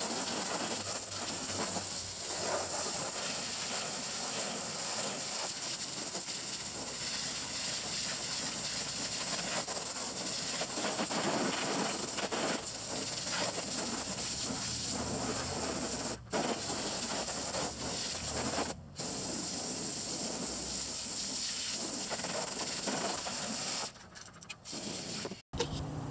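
Hose spray hitting the muddy water and plastic shell of an emptied duck pond as it is rinsed out, a steady hiss of spraying water. It stops briefly twice partway through and breaks off near the end.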